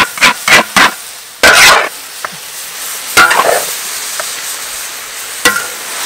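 Metal spatula scraping and clanking against a large wok as noodles and greens are stir-fried, over a steady sizzle. A quick run of four strokes in the first second, a longer scrape around a second and a half in, then single strokes about three and five and a half seconds in.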